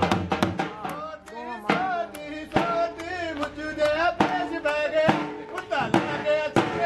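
Music with a steady drum beat and a voice singing a wavering melody over it.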